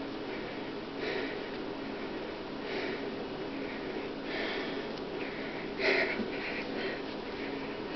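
A man breathing hard through his nose in short, sharp sniffs and exhales every second or two, the effort breathing of straining to bend a wrench by hand; the strongest breath comes about six seconds in. A steady low hum runs underneath.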